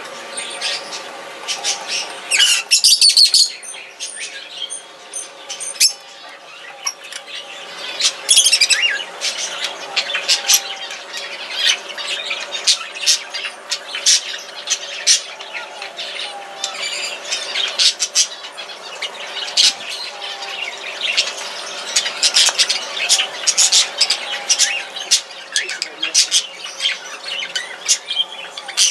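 A flock of small parrots, lovebirds and budgerigars, chattering with a constant run of short, shrill chirps and squawks. The loudest bursts come about three and about eight seconds in.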